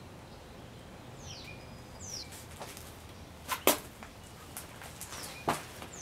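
Hard plastic clicks as a taillight housing is pressed and seated against the car body: a sharp double click about three and a half seconds in, the loudest sound, and a single one about five and a half seconds in. Birds call faintly in the background with short falling chirps.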